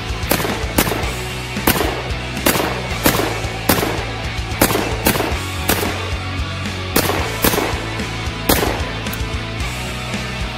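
Black Aces Tactical bullpup semi-automatic 12-gauge shotgun firing 00 buckshot in rapid semi-auto fire: about a dozen loud shots at an uneven pace of one to two a second, over background music.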